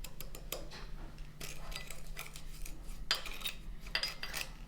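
A spoon scraping and clinking irregularly against the inside of a ramekin cup, stirring sugar and water into a wet paste. A faint, steady low hum sits underneath.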